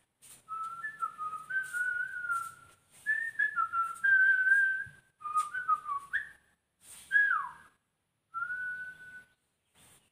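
A man whistling by mouth, a wandering tune in several short phrases with gaps between them. About seven seconds in comes one quick downward slide, then a final held note.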